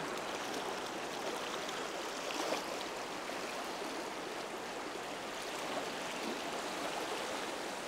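Fast river current rushing steadily through a shallow, turbulent riffle.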